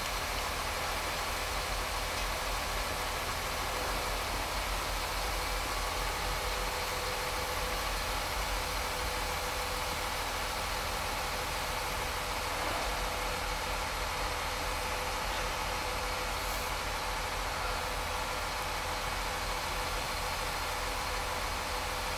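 Engine of heavy construction equipment idling steadily, with no pile-hammer blows.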